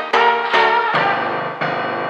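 Background piano music: struck notes, then sustained chords ringing from about a second in, as the piece draws to a close.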